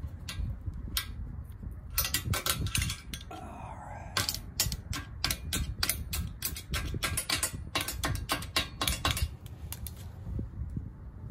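Irregular metallic clicking, clinking and a brief scrape as a hitch bolt, washer and fish wire are worked inside a steel frame tube. The clicks come in quick clusters, thickest in the middle, over a low steady rumble.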